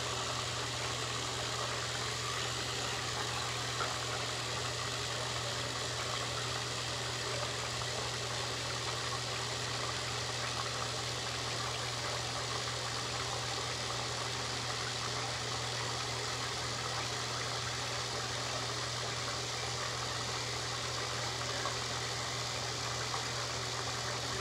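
Steady low hum with an even hiss above it, unchanging in level.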